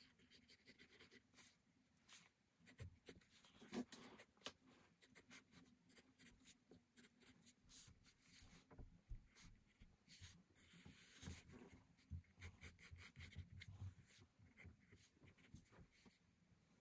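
Faint pencil scratching on sketchbook paper: a graphite pencil sketching in many short, irregular strokes, with a few longer ones.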